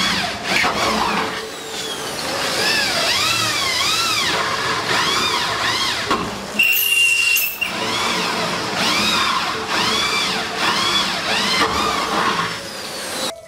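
Corded electric drill boring through an aluminium cabinet panel, its whine rising and falling over and over, about twice a second.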